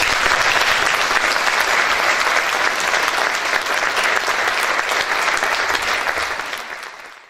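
Audience applauding after a lecture, a dense steady clapping that fades out near the end.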